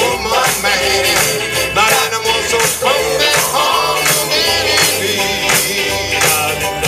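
Song with singing over a band, with a steady drum beat and bass line.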